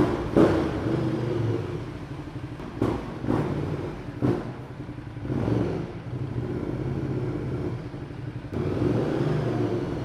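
Ducati Multistrada 1200's L-twin engine running, with about five short, sharp throttle blips in the first six seconds, then a steadier run.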